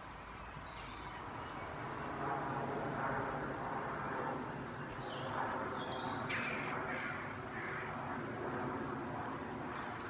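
Crows cawing several times over a steady outdoor background.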